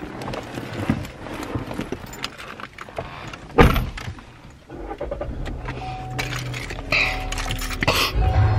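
Keys jangling and clicks and rustles of handling as someone settles into a car, with one loud thud about three and a half seconds in. A low steady hum sets in about halfway, and music starts near the end.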